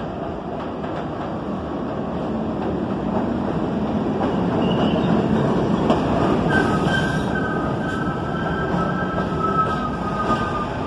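New York City Subway train pulling into an elevated station, its rumble growing louder as the cars run past close by. About six and a half seconds in, a steady high-pitched squeal sets in as the train slows.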